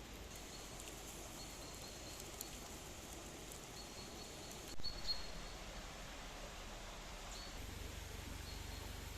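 Quiet outdoor ambience with faint, short high chirps repeating now and then, likely birds. A couple of sharp clicks or knocks come about five seconds in.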